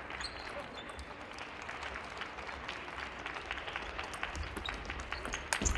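Table tennis rally: the celluloid-type ball ticks sharply off the paddles and the table in a quick, irregular series of clicks over a steady hiss of hall noise, with a couple of louder hits near the end.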